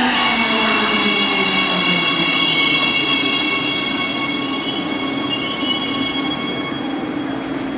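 Siemens Inspiro metro train pulling into the station and slowing to a stop. Its electric drive's whine falls in pitch as it slows, with a steady high-pitched squeal over it that fades out near the end.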